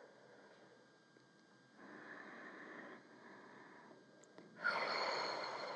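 A woman breathing slowly and audibly through her nose, paced to a yoga neck stretch: a soft breath about two seconds in, then a louder, longer breath near the end.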